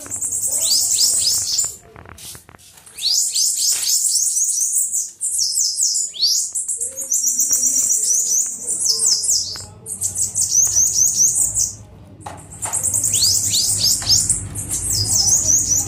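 Bananaquit singing: several phrases of very high, thin, rapid notes, each a quick run of falling strokes, with short pauses between phrases.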